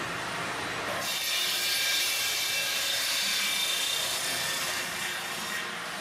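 Sawmill machine sawing through a log as it feeds in on a chain conveyor: a steady cutting noise that gets louder about a second in and eases off near the end.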